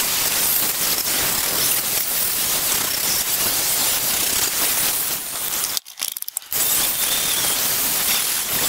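Angle grinder with an abrasive disc sanding the flat of a rusty steel cleaver blade, a steady grinding hiss. It breaks off briefly about six seconds in, then runs on.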